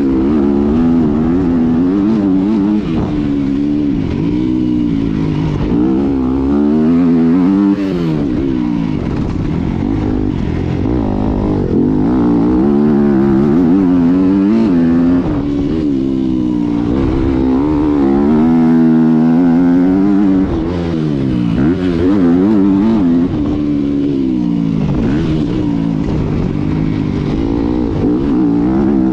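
Yamaha 250 dirt bike engine, heard close from the handlebars, revving up and dropping back over and over as the throttle is opened and closed around a motocross track.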